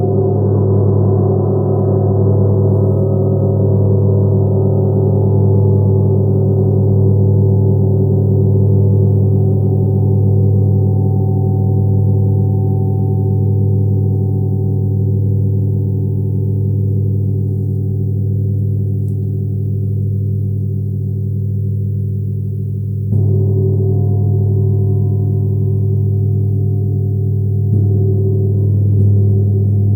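Tibetan meditation gong ringing on after a strike, a deep steady hum underneath while its higher overtones slowly die away. It is struck again about 23 seconds in, and once more, more softly, about 28 seconds in.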